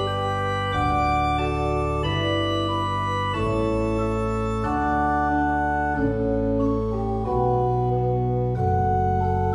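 Background music of sustained chords, held and changing about once a second.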